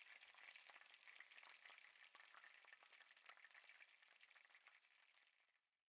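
Near silence: a faint crackling hiss that fades away near the end.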